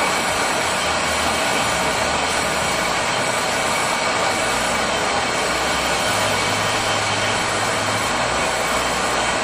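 Metal lathe running with its chuck spinning a disc-shaped workpiece: a steady mechanical whir.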